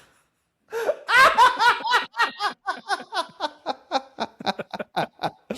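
Hearty human laughter: a long run of rapid 'ha' pulses that starts about a second in and tapers off, getting shorter and fainter toward the end.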